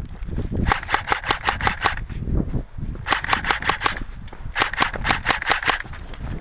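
Airsoft gun firing three quick volleys of sharp cracking shots, about six shots a second, with short pauses between the volleys.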